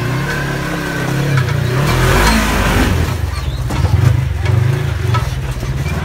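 Custom Polaris RZR XP1K's engine revving up and down under load as it climbs a rock ledge. It revs hardest about two seconds in and again near four seconds.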